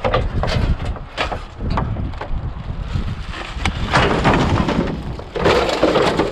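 Wind buffeting the microphone with a steady low rumble, over the clatter of junk being shifted around in a dumpster. Several sharp knocks come in the first few seconds, then louder rustling and scraping about four seconds in and again near the end.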